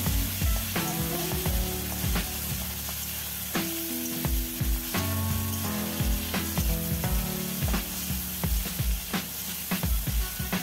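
Prawns and then whole spices sizzling in hot oil in a wok, over instrumental background music with a beat.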